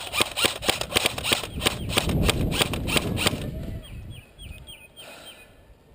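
Airsoft guns firing a rapid string of sharp shots, several a second, which stop about three and a half seconds in. After that a bird calls a quick run of repeated chirps.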